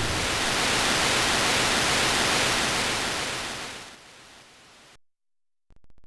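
Steady hiss of white noise from the demo's soundtrack, the tail of an explosion effect, fading out about four seconds in to silence. Faint rapid clicks start up near the end.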